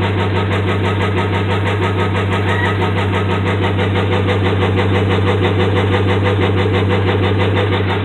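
Dodge Ram's 5.7 Hemi V8 running steadily at idle with a rapid, even knock, the sign of worn connecting rod and crankshaft bearings.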